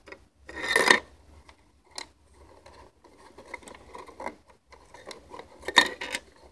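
Handling noise: irregular scraping and rubbing with a few sharp clicks, loudest about a second in and again near the end.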